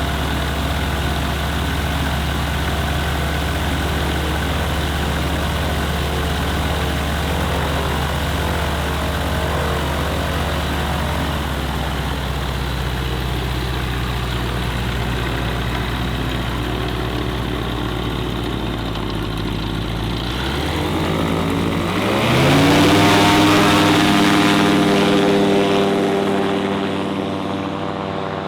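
Microlight aircraft engine and propeller idling steadily, then the throttle is opened about 21 seconds in and the pitch climbs sharply to full power, the loudest part. The sound then fades gradually near the end.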